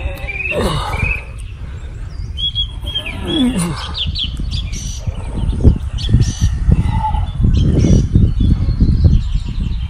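Birds chirping, with scraping and rustling of soil and grass as hands and a stick dig into a snake's burrow. The scraping grows louder from about halfway through.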